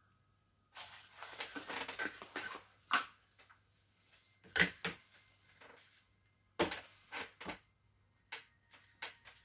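Plastic clicks, knocks and rattles of a 1/10 electric RC drift car chassis being handled and pressed on by hand: a rattly stretch early on, then a string of separate sharp clicks.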